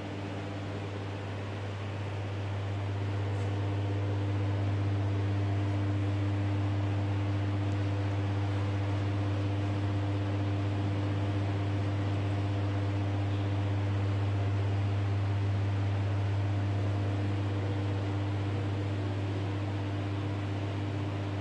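Noritsu LS-600 film scanner running a scan: a steady low hum with a few fainter steady tones and a hiss of fan noise, swelling over the first few seconds and then holding level.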